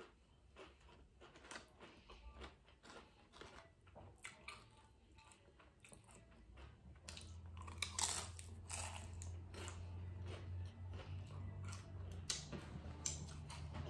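Close-up chewing of loaded nachos: Doritos tortilla chips with shrimp and toppings, crunching in a string of short crisp bites that get louder in the second half. A steady low hum comes in about halfway.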